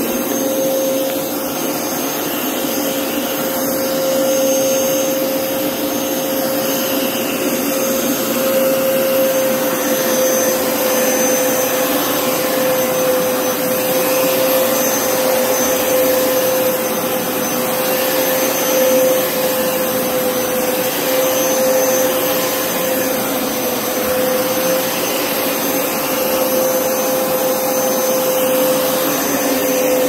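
Hoover Power Scrub Elite carpet washer running while it is pushed over carpet: a steady drone from its suction motor, with one clear, even tone through it.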